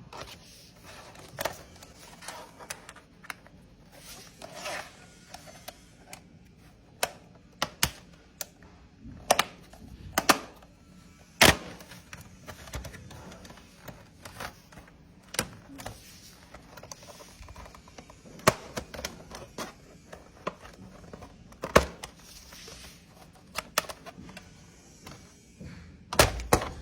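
Laptop back-cover work: irregular sharp clicks and taps of a screwdriver on the screws and of the plastic bottom panel being handled and pried loose, with a short cluster of louder knocks near the end.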